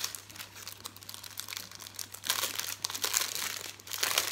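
Small clear plastic bags of diamond-painting drills crinkling as they are handled, in irregular crackles that grow louder about halfway through and again near the end.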